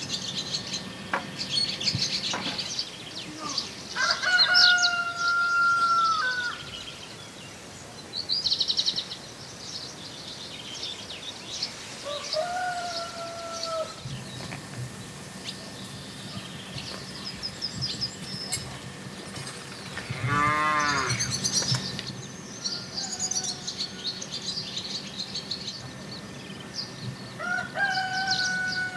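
Small birds chirping throughout, with a few drawn-out animal calls a couple of seconds long, and one wavering, pulsing call about twenty seconds in.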